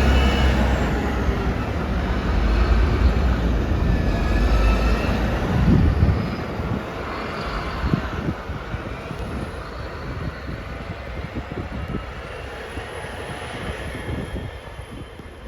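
A heavy vehicle's engine rumbling close by, then fading away after about six seconds into a quieter steady noise.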